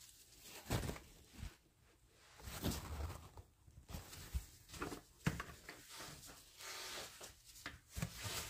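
Paper towel patting and rubbing over raw pork ribs to dry them: soft, irregular rustling and dabbing strokes.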